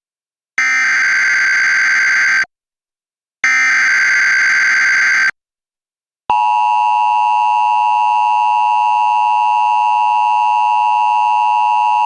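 Emergency Alert System signals opening a flash flood warning. First come two bursts of SAME header data tones, each about two seconds long and a second apart. Then, about six seconds in, the steady two-tone EAS attention signal starts and holds.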